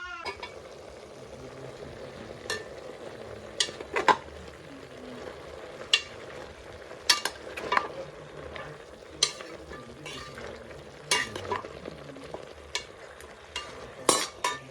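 Stiff cassava and millet flour ugali being stirred and worked in a pot: steady scraping and hiss broken by about a dozen irregular sharp knocks of the stirring stick against the pot.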